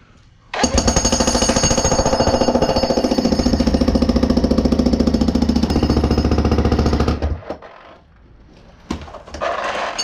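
Corded electric jackhammer breaking up a concrete slab: it starts about half a second in, hammers rapidly and steadily, and stops after about seven seconds. A short, quieter clatter follows near the end.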